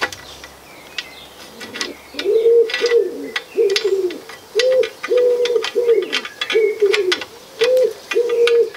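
A pigeon cooing, a run of repeated low notes, each held and then dropping at the end, starting about two seconds in. Light clicks and taps from the metal chair frame being handled and lined up sound underneath.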